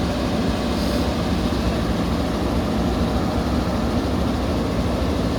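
JCB backhoe loader's diesel engine running steadily at an even pitch.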